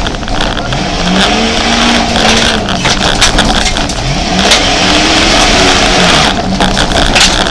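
Jeep Grand Cherokee engine revving hard on a rough dirt track, heard inside the cabin. Its pitch rises and falls several times as it accelerates and shifts. Frequent knocks and rattles come through over the engine and track noise.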